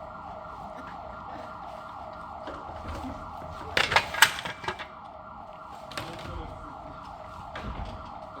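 Emergency-vehicle siren in a fast yelp, its pitch sweeping down several times a second without pause. A short clatter of sharp knocks, the loudest thing here, comes about four seconds in.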